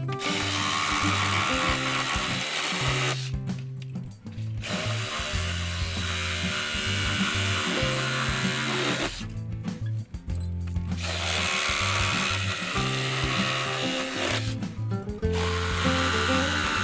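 DeWalt 20V compact brushless cordless reciprocating saw cutting through weathered wooden fence boards in long runs. It stops briefly about three seconds in, again near ten seconds and again near fifteen seconds. Background music plays underneath.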